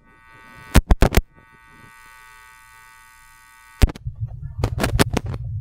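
A few sharp clicks, then a steady high electrical buzz for about three seconds that cuts off with a click, followed by low rumbling noise for the last second and a half.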